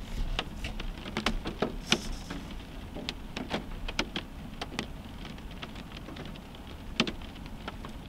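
Raindrops tapping on a car's roof and windshield, heard from inside the car: irregular sharp ticks over a steady low background noise, growing sparser after about five seconds.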